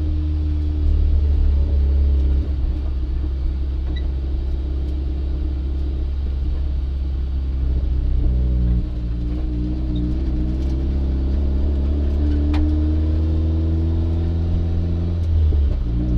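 1994 Mazda Miata's turbocharged 1.8-litre four-cylinder engine cruising at light throttle, a steady drone with road rumble and no misfire. The engine note changes about nine seconds in and again near the end.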